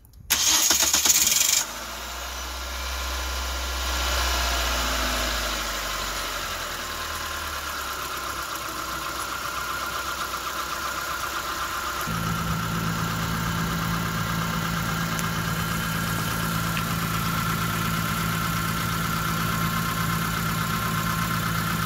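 Mitsubishi Carisma engine cranked by the starter, catching within about a second and a half, then idling steadily. About halfway through, the idle note changes and a deeper, steadier hum comes in.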